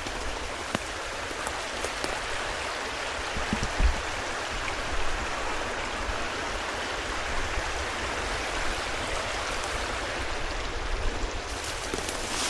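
Steady rush of running water, like a creek, with a soft low thump about four seconds in.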